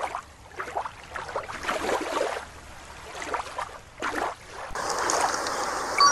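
Water splashing in several uneven swells as an orca breaches and crashes back into a pool, then a steady trickle of shallow creek water from about five seconds in.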